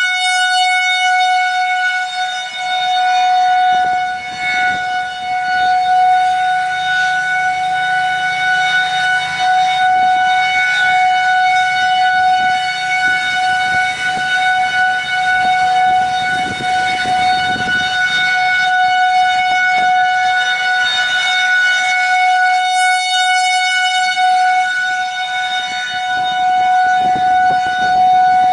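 Federal Signal 2001-SRNB outdoor warning siren sounding its steady alert tone at about 740 Hz, swelling and fading slowly in loudness as its head rotates. Wind rumbles on the microphone underneath.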